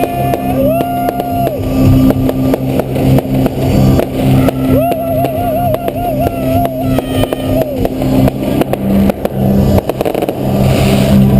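Instrumental stretch of a song: steady held bass notes under a wavering melody line that drops out twice, with a busy clatter of short beats or knocks throughout.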